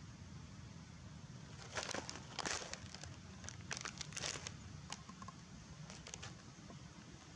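Dry leaves crackling and crinkling in a run of short rustles about two seconds in, with a few lighter crackles around six seconds.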